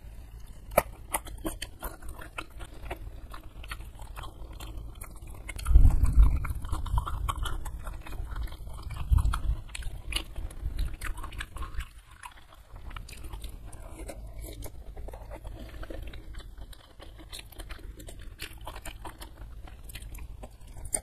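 Close-miked chewing and wet mouth clicks as a person eats rice and sambal with her fingers, then bites into a piece of gulai kikil (beef skin). Low thumps about six and nine seconds in are the loudest sounds.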